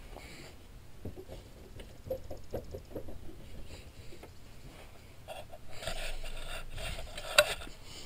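Driver's door of a 2005 GMC Sierra pickup being lifted and let down, knocking softly at the hinges as it moves: the sign of worn, loose door hinge pins. A few light knocks come in a cluster a couple of seconds in, followed by rubbing and handling noise with one sharp click near the end.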